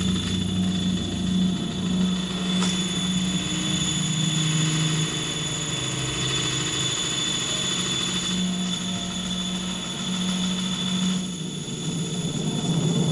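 A dense, steady machine-like drone with a constant high whine held over it, cutting off abruptly at the end.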